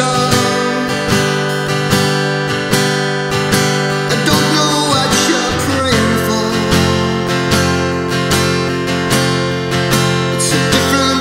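Tonk Bros parlour acoustic guitar strummed in a steady rhythm, about one stroke a second, with a chord change about halfway through.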